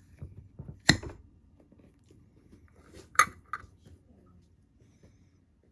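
Tableware knocking against a dish: two sharp clinks, about a second in and a little after three seconds, the second ringing briefly, followed by a lighter tap.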